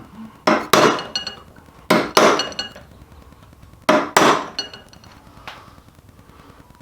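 Hammer striking a punch to stake a nut on a transmission shaft, metal on metal with a short ringing tone. It comes as three quick double blows about a second and a half apart, then one lighter tap.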